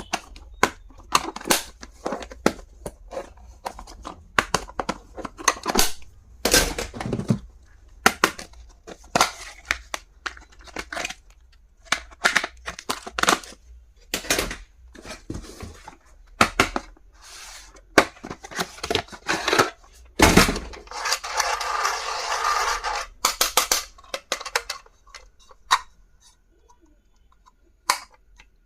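Stationery packaging being handled and opened by hand: a run of sharp clicks, taps and crinkles, with a longer continuous rustle about three-quarters of the way through.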